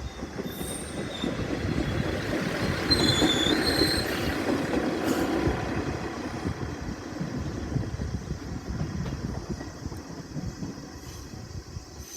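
Diesel railcar of the Tenryu Hamanako Railroad passing, its wheels rumbling on the rails. It is loudest about three to four seconds in, with brief high wheel squeal at the peak, then it fades away.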